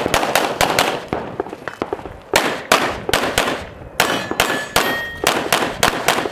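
Competition pistol fired in rapid strings of shots, several a second, with short pauses between strings as the shooter moves between target arrays. Steel targets clang and ring when hit, most clearly a little after four seconds in.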